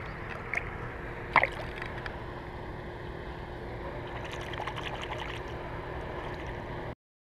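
Shallow water lapping at a rocky shoreline, with one sharp splash about a second and a half in as the released bass kicks off; the sound cuts off just before the end.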